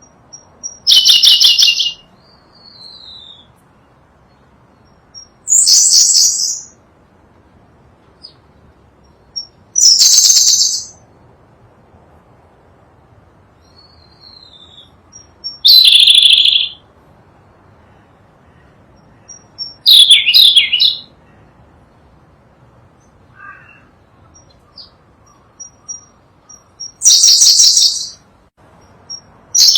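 Sunda blue robin singing: six loud, high-pitched song phrases of about a second each, repeated roughly every five seconds, with soft, thin short notes in the gaps.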